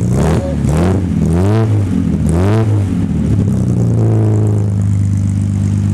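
1963 Austin-Healey 3000 MkII BJ7's straight-six engine heard close at its twin exhaust tailpipes, given three quick throttle blips that rise and fall, then settling to a steady idle.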